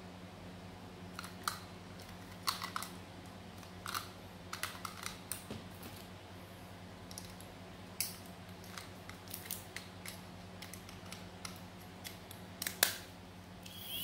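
Scattered small plastic clicks and taps as AA batteries are fitted into a handheld battery-powered milk frother and its plastic housing is handled and closed, over a low steady hum.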